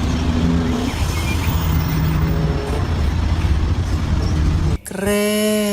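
Bus engine running, loud and steady, that cuts off abruptly near the end. A pitched tone follows, holds briefly, then slides down in pitch.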